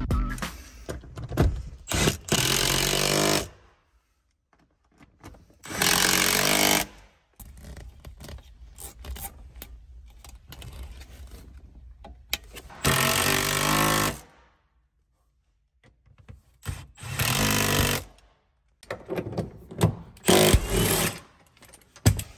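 Power tool running in about five short bursts of a second or so each, with quiet gaps between.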